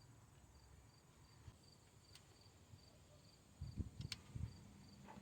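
Faint cricket chirping at an even pace, about two to three chirps a second. A few soft low thumps and a couple of light clicks come about three and a half to four and a half seconds in.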